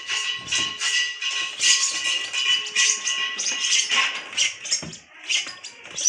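Lovebird chicks calling: a continuous rapid chatter of raspy, high-pitched cheeps from several birds at once.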